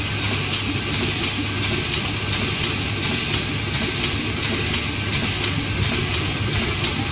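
Zhongye small offset printing press running steadily as it prints and delivers sheets of two-colour snack labels, an even mechanical clatter with a low hum beneath it.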